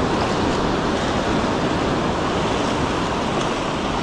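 Steady rush of waves and moving water.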